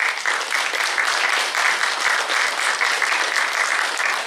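Audience applauding with a steady round of clapping.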